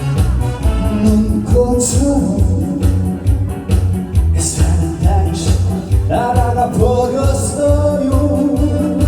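Korean trot song played loud with a steady bass beat and a gliding melody line, with singing over it.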